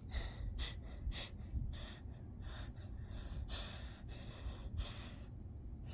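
A person sniffling and catching short breaths through the nose, about two a second, while holding back an urge to sneeze.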